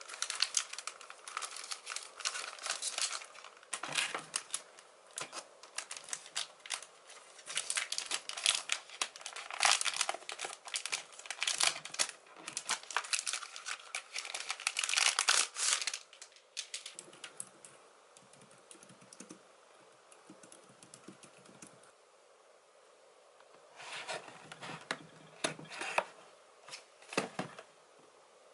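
Thin plastic wrap on a new keyboard crinkling and tearing as it is unwrapped. The crinkling is dense for about the first half, goes quieter for several seconds, then comes back in a few short bursts of handling noise near the end.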